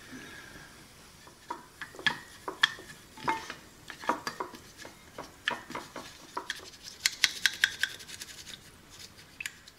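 Small paintbrush scrubbing white wine vinegar into the corroded metal contacts of a plastic battery holder in a ceramic bowl, cleaning off battery leakage: light scratching with irregular clicks and taps of plastic and bristles against the bowl, quickening into a fast run of ticking strokes about seven seconds in.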